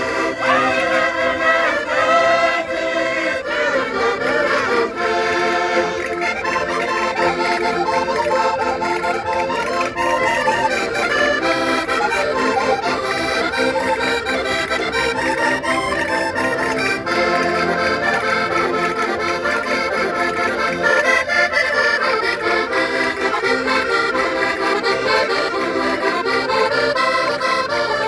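Portuguese concertinas, diatonic button accordions, playing a traditional tune as an instrumental passage without singing.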